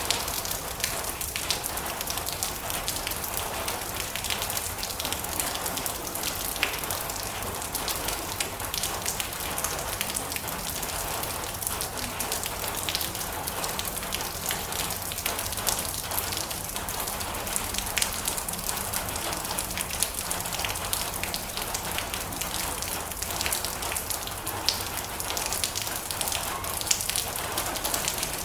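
Steady rain falling on a metal roof: a constant hiss of rain with many sharp ticks of single drops striking the metal.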